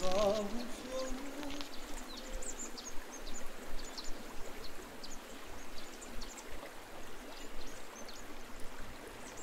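Outdoor ambience: a steady rushing noise with many short, high bird chirps scattered throughout.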